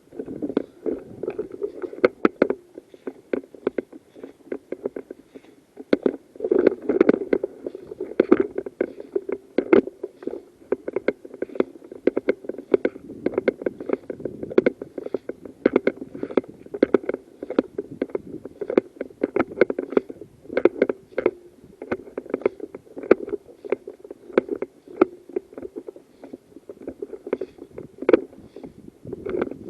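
Continuous rustling and crackling of someone moving on foot, with many small irregular clicks and scrapes.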